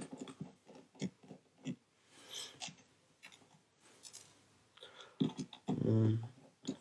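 Small precision screwdriver turning tiny screws inside an opened iPhone: scattered light clicks and scrapes of metal tool on screw and frame. About six seconds in there is a brief low hum, like a voice.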